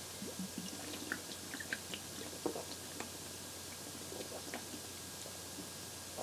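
A man chugging beer straight from a 40 oz glass bottle: faint gulping and swallowing with small, irregular wet clicks.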